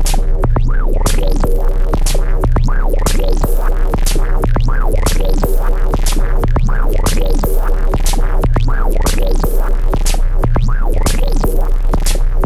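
Electronic track played on a Korg Volca Drum and a Eurorack modular synth. A kick and snare beat runs under a sequenced synth line with repeated swooping pitch sweeps, over a constant deep bass tone.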